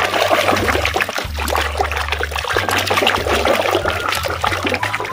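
Muddy water in a plastic basin being churned and splashed by a hand scrubbing a toy cow clean: continuous sloshing and splashing with many small wet clicks.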